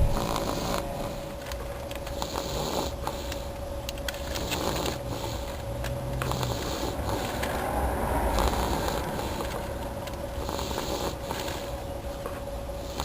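A sleeping baby snoring, with a noisy breath about every one and a half to two seconds, over a steady hum.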